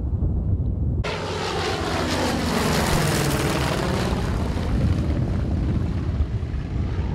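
A propeller warbird's piston engine passing low and loud, its note falling steadily in pitch as it goes by. The sound starts suddenly about a second in.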